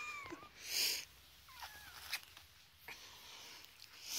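Three-week-old chihuahua puppy giving a short, high, falling whine, then a fainter squeak about a second and a half in, with a few soft rustles of handling.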